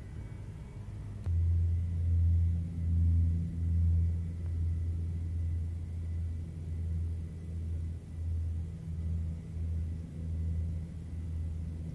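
Low rumble of a jet airliner on approach with gear down, heard from a distance, swelling and fading in slow pulses. It starts abruptly about a second in.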